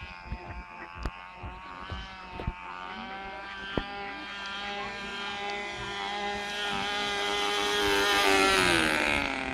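Model airplane's motor droning in flight, growing steadily louder as it approaches and then dropping in pitch as it passes close by near the end.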